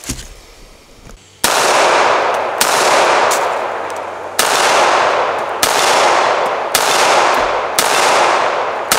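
Roberts Defense 1911 pistol fired in a slow string of about seven shots, roughly one a second, starting about a second and a half in. Each shot is followed by a long echo that is still fading when the next one comes.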